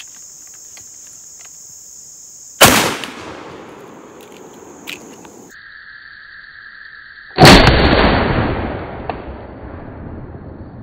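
Mossberg 835 12-gauge pump shotgun firing a 2.5-ounce (1,082-grain) hollowpoint slug: one loud blast about seven seconds in, with a rolling echo that fades over the next few seconds. A shorter sharp bang comes about two and a half seconds in.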